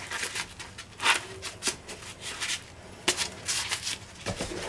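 Hands handling a small tool pouch and the lockpicking tools in it: repeated rustling of fabric with light clicks and taps of small metal tools.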